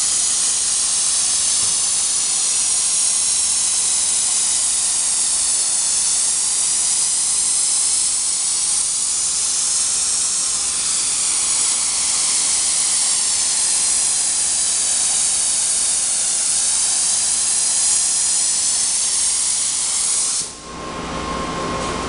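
Gravity-feed spray gun hissing steadily as it sprays activator over the hydrographic film floating on the dip tank, which dissolves the film into liquid ink. The hiss stops suddenly near the end.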